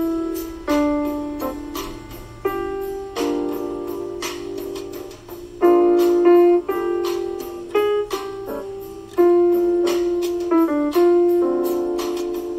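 Background piano music: a slow melody of single struck notes and chords, each note ringing on and fading before the next.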